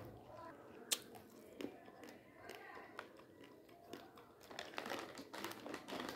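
Raw basmati rice grains being chewed with small crunching clicks, mixed with the crinkle of the plastic rice packet being handled. A sharp click about a second in, and a denser run of crunches a little before the end.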